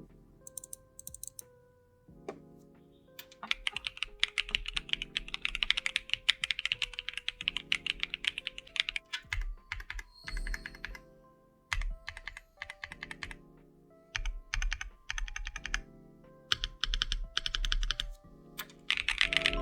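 Typing on an M1 mechanical keyboard fitted with AKKO V3 Cream Blue Pro tactile switches: runs of rapid keystrokes, a dense stretch through the first half, then shorter bursts separated by pauses, over background music.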